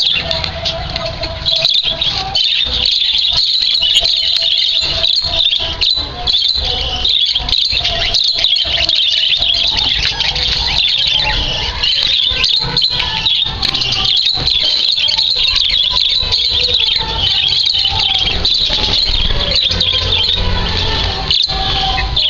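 A flock of small caged parrots (budgies or lovebirds) chattering and screeching without a break, many high, shrill calls overlapping.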